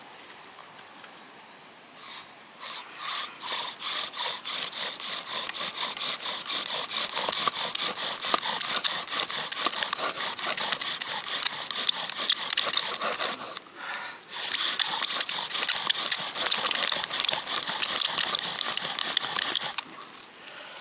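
Bow drill: a poplar spindle spun back and forth in a poplar fireboard by a bow strung with twisted elm-bark cord, making rhythmic friction strokes that start about two seconds in and speed up, break off briefly about two-thirds through, then resume fast and stop near the end. The spindle is grinding hot wood dust into the fireboard notch to build an ember.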